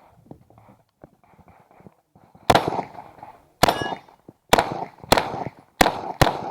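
Six shots from a 9mm Uzi Pro semi-automatic pistol, fired at uneven intervals and starting about two and a half seconds in. A ringing metallic clang follows the second shot.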